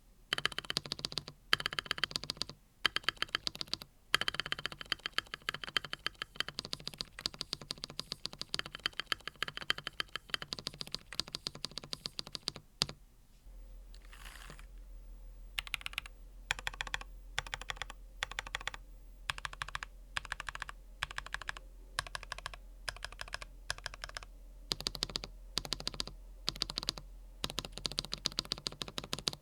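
Typing on a NuPhy Field75 mechanical keyboard fitted with NuPhy Fleeting Gold switches. The keystrokes run fast and continuous for about thirteen seconds, then come in short bursts separated by brief pauses, with a faint low hum underneath from then on.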